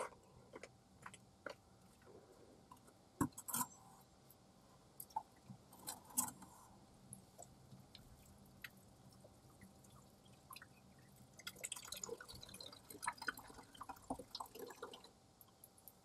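Hot water dripping and splashing from the tap of a wood-fired water heater into a plastic bucket: scattered faint drops, getting busier for a few seconds near the end.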